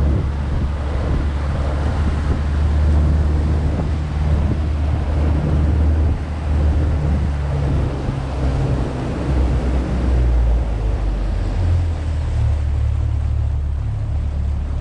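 Heavy wind buffeting the microphone on a boat running on the river: a loud, steady low rumble with a rushing hiss over it.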